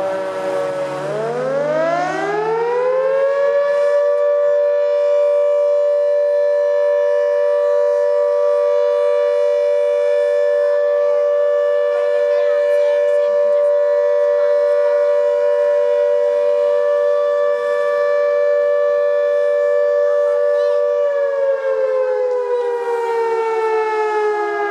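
Fire station's callout siren summoning the volunteer crew: it dips at the start, winds up over a few seconds, holds a steady two-tone wail, then winds down near the end.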